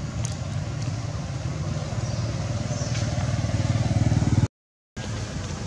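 A steady low rumble that grows louder over about four seconds, then cuts out completely for half a second before returning.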